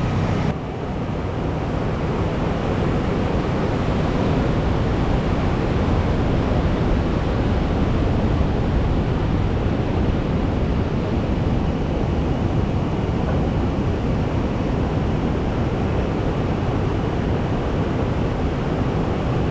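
Steady roar of ocean surf, with wind buffeting the microphone.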